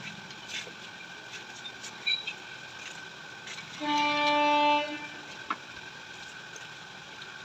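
A vehicle horn sounds once, held for about a second, about four seconds in. Under it runs a steady high whine with light scattered clicks from the roller tool crimping the motorcycle shock absorber's body.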